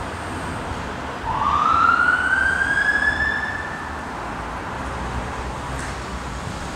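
A siren sounding one slow rising wail: a single tone climbing in pitch over about three seconds and then fading. Underneath is a steady street rumble of traffic.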